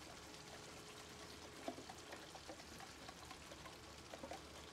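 Faint sizzling of a pan of mutton masala as canned evaporated milk is poured in and stirred with a wooden spatula, with scattered small ticks and one soft knock about a second and a half in.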